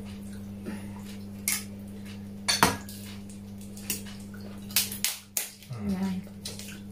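Crab shell cracking as it is pulled apart by hand, with a handful of sharp separate cracks and clicks among the dishes, over a steady low hum.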